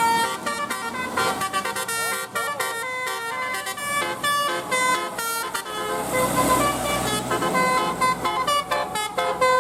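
Bus 'telolet' musical horn (a basuri horn set) playing a quick tune of short notes that step up and down, with a rush of noise about six to seven seconds in.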